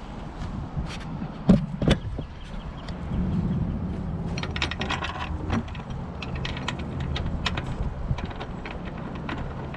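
Tools and metal hood-latch hardware being handled: scattered clicks and light metallic clinks, with two louder knocks about a second and a half in, over a steady low hum.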